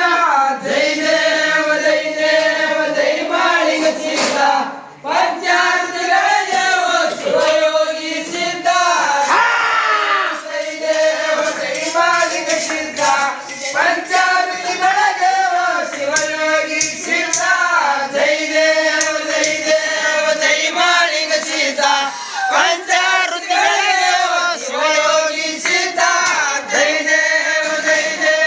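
A crowd of men singing a Kannada devotional aarti hymn together, loud and continuous, with a short dip about five seconds in.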